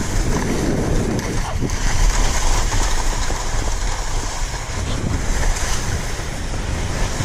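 Skis sliding and turning over granular spring corn snow, a steady hiss, with wind buffeting the body-worn camera's microphone as a low rumble.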